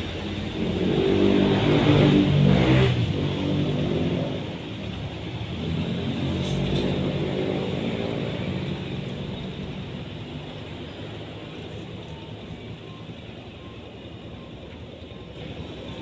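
A motor vehicle's engine passing by: it swells to its loudest about two seconds in, swells again more faintly a few seconds later, then fades away.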